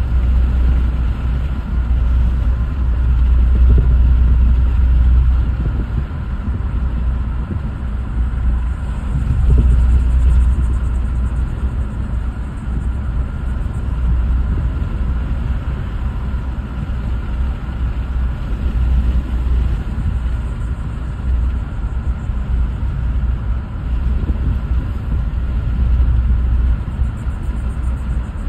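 Car driving along a street, heard from inside the cabin: a steady low rumble of road and wind noise that swells louder about 4 and 10 seconds in.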